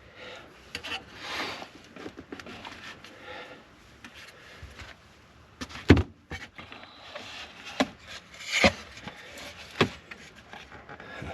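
Hand-work noises: rubbing and scraping with several sharp knocks and clicks, the loudest about halfway through and three more over the next four seconds.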